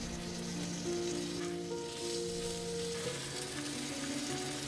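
Bánh xèo batter of coconut milk and turmeric sizzling steadily in a hot frying pan as the thin crepe cooks.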